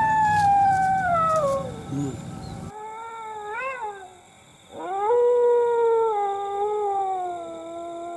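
A dog howling: a long wail sliding down in pitch, a short rising-and-falling cry about three and a half seconds in, then a second long wail that falls slowly. The kind of howl used as an eerie cue before a ghost appears.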